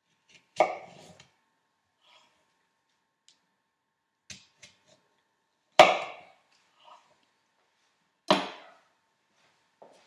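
Chef's knife chopping through a slice of rock melon onto an end-grain wooden chopping board: three sharp chops, the last two about two and a half seconds apart, with a few light knocks of the blade in between and a light knock near the end as the knife is laid on the board.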